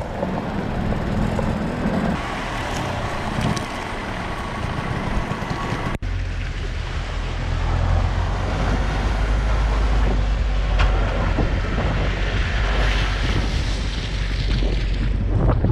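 Four-wheel-drive vehicles driving off-road: engines running and tyres on a rough track, a steady rumble. About six seconds in it changes abruptly to a deeper, louder rumble as a vehicle drives along a muddy track.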